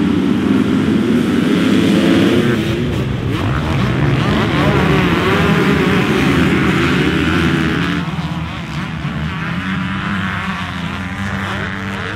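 A pack of motocross bikes revving hard as they launch off the start gate and accelerate away together, many engines overlapping with pitch rising and falling as riders shift and turn. The sound eases somewhat after about eight seconds as the pack moves off.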